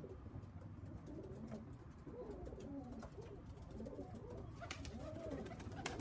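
Several racing pigeons cooing together, their soft overlapping coos carrying on steadily, with a couple of faint clicks near the end.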